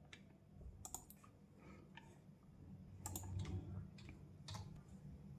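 Faint, scattered clicks of computer keyboard keys and mouse buttons, single or in quick pairs, as a search term is typed and menu items are picked. A faint low hum runs underneath.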